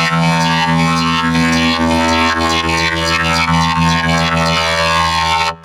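Loud, heavily distorted synth-like drone from vocoder-processed music, a thick stack of steady held pitches. It drops out abruptly near the end.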